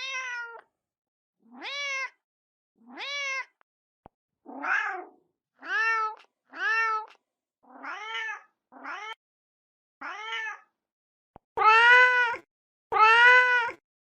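Mother domestic cat calling for her kittens: about eleven short, separate meows, each rising in pitch then levelling off, with brief silences between; the last two are the loudest.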